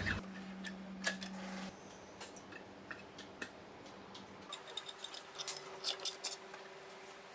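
Faint clicks and chops of a lever-arm paper trimmer's blade slicing through a carrot, a few scattered strokes and then a quicker run of them in the second half, over a low steady hum.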